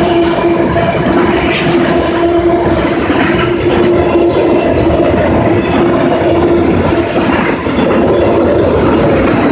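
CSX autorack freight cars rolling past: steady noise of steel wheels running on the rails. A steady ringing tone sits over it, breaking off for a moment about seven seconds in.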